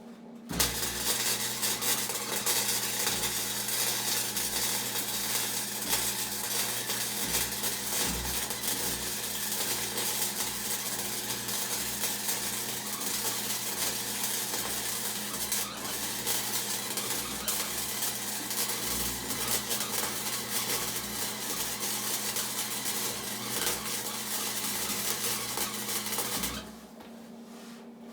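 Wire-feed welder arc crackling and sizzling in one long continuous weld, with a steady low electrical hum underneath; it starts just after the beginning and cuts off abruptly near the end.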